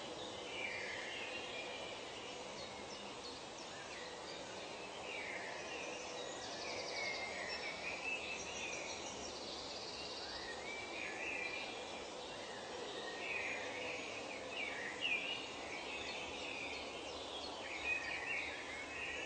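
Tropical forest ambience: many birds chirping and calling over a steady background hiss, with a few short high trills in the middle.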